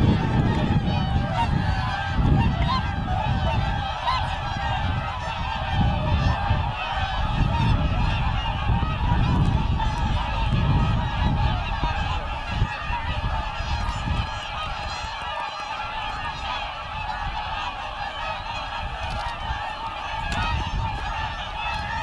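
A large flock of whooper swans calling together in a continuous chorus of overlapping honking and bugling. Wind rumbles on the microphone, heavier in the first half.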